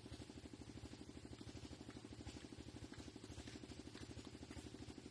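Faint small engine idling steadily, with an even rapid pulse of about eleven beats a second.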